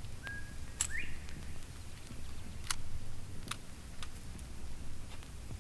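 Vinyl record surface noise: a steady low rumble with scattered sharp clicks and pops. A brief faint whistling tone rises about a second in.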